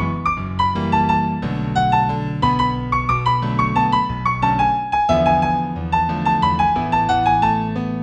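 Solo piano music in A major at a moderate tempo of about 90 beats a minute: a melody of short notes over held chords.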